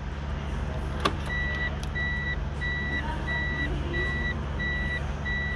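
High electronic warning beep repeating evenly, about one and a half times a second, over a steady low hum, with one sharp click about a second in.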